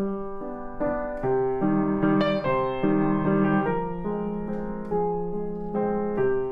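Piano music, single notes and chords struck about twice a second.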